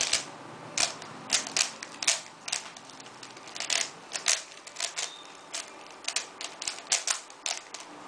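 3x3x3 Rubik's Cube being scrambled by hand: a run of irregular plastic clicks and clacks as its layers are twisted, a few each second, stopping just before the end.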